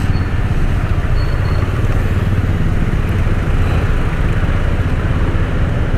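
Yamaha 150cc scooter's single-cylinder engine running steadily while being ridden, a low, even rumble.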